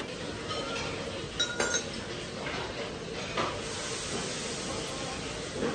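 Glassware and dishes clinking at a dining table: a quick cluster of sharp, briefly ringing clinks about one and a half seconds in and another single clink a couple of seconds later. A steady hiss runs under the last two seconds.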